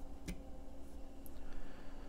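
A steady low hum with a couple of faint clicks as test leads are handled.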